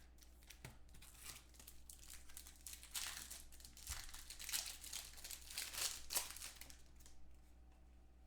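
A trading card pack's wrapper being torn open and crinkled by hand, with a denser run of crackling in the middle few seconds.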